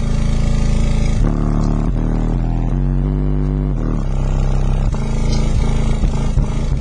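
Adire Audio Brahma 15-inch subwoofer in a sealed enclosure playing loud, deep bass notes at high excursion, the pitch stepping to a new note every second or so.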